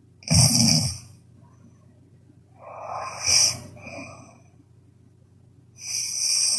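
A sleeping person snoring loudly, one snoring breath after another: a loud snore about a third of a second in, a longer two-part breath around three seconds, and another loud snore building near the end.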